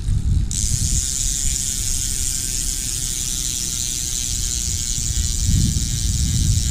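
Hope freehub on a mountain bike's rear wheel freewheeling with its loud, high-pitched ratchet buzz, which starts abruptly about half a second in and holds steady, over a low rumble.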